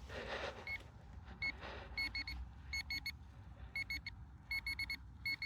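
Handheld pinpointer beeping in the dig hole: short, identical high-pitched beeps in clusters that come faster and closer together toward the end as it closes in on a metal target. A brief scuffing sound comes at the start.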